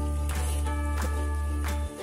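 Ukulele background music with held bass notes and a regular percussive beat.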